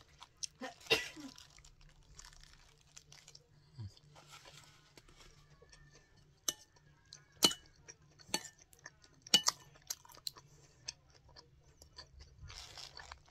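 Someone eating: chewing a kebab, with a spoon clinking sharply against a bowl of es campur several times in the middle.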